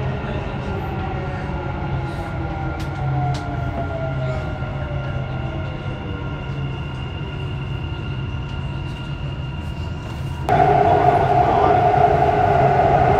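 Dubai Metro train running, a steady rumble under a motor whine that falls in pitch over the first several seconds as the train slows. About ten seconds in the sound abruptly turns louder, with a steadier hum.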